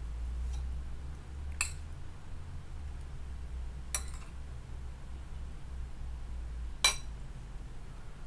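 A spoon clinking against a ceramic bowl: three sharp clinks a couple of seconds apart, the last the loudest, over a low steady hum.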